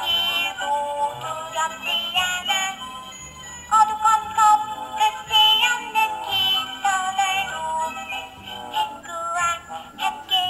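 Background music with a synthetic singing voice carrying the melody, louder from about four seconds in.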